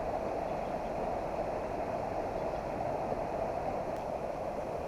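Mountain stream flowing over riffles, a steady rush of running water, the stream running high.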